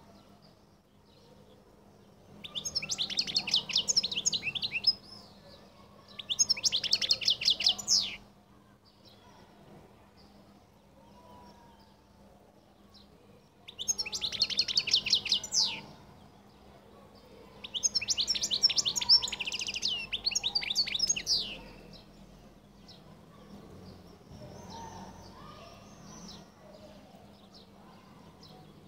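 European goldfinch of the Collo song type singing in four loud bursts of rapid, high twittering trills, each two to four seconds long. Fainter, scattered chirps follow near the end.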